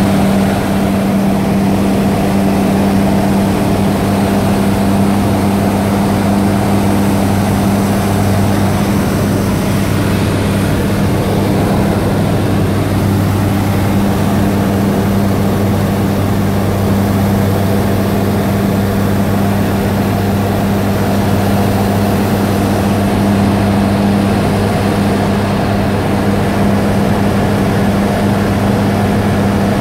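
Aeropro Eurofox light aircraft's engine and propeller running steadily in flight, heard from inside the cockpit: a constant low hum with a hiss of air noise over it.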